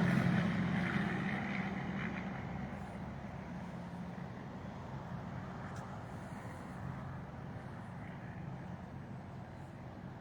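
A road vehicle's engine and tyre noise fading away over the first few seconds, leaving a steady low rumble.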